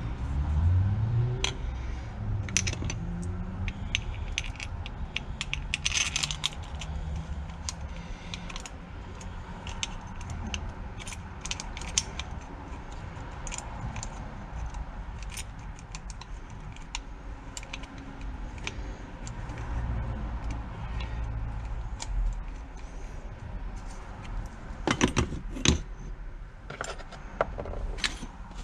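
Metal tools and engine parts clinking and rattling as they are handled while a small Briggs & Stratton engine is taken apart, with scattered sharp clinks and a louder run of clinks near the end.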